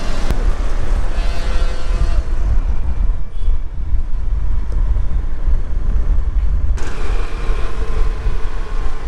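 City road traffic heard from a moving two-wheeler: steady engine and tyre noise with a heavy wind rumble on the microphone, and a brief tonal sound, like a horn, about a second and a half in.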